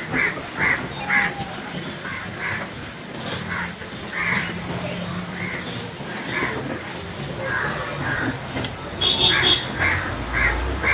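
Crows cawing repeatedly, short harsh calls coming every half second or so in loose runs, over a steady low hum. About nine seconds in, three short high notes cut through.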